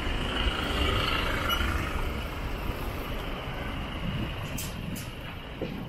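Road traffic passing: a low rumble with a hiss in the first second or two, fading away, and two short ticks near the end.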